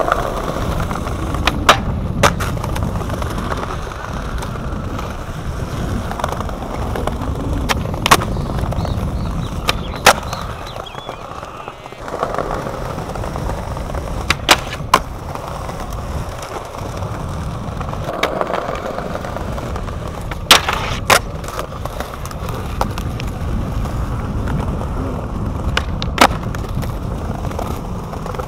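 Skateboard wheels rolling on smooth concrete with a steady rumble. Sharp wooden clacks of the board cut through it, several in pairs about half a second apart: the tail popping and the board landing on flat-ground tricks.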